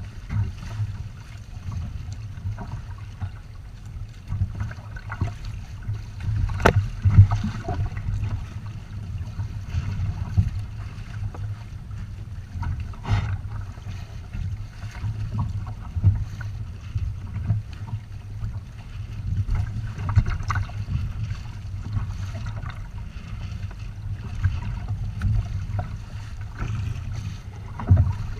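Water rushing and splashing along the hulls of a Windrider 17 trimaran under sail, under a gusting low rumble of wind on the microphone. One sharp knock about seven seconds in.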